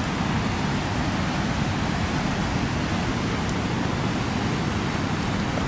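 Flooded river rushing in high, fast water: a steady, even rush with no breaks.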